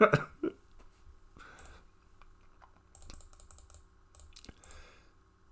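Faint typing and clicking on a computer keyboard in a few short spurts, over a low steady hum.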